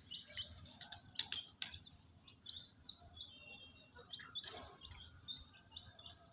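Faint chirping of small birds: many short, high chirps scattered throughout, with a few sharp clicks between about one and two seconds in.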